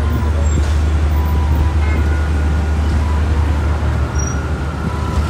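Steady, loud, deep rumble of outdoor background noise.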